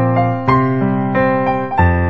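Background music: piano or electric-piano notes played at a gentle, even pace.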